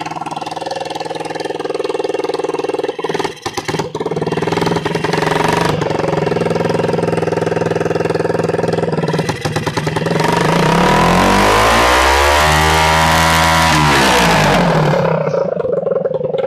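Small motorcycle engine idling steadily, then revved up about ten seconds in, held at higher revs for a couple of seconds and let fall back to idle near the end.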